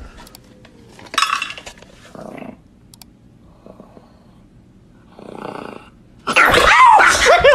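Small dog making short sounds over its food bowl, then a loud vocal sound that wavers up and down in pitch near the end.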